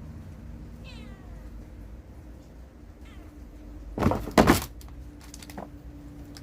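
Domestic cat meowing: a short call falling in pitch about a second in, then a fainter one. About four seconds in comes a loud thump with a brief clatter, the loudest sound here.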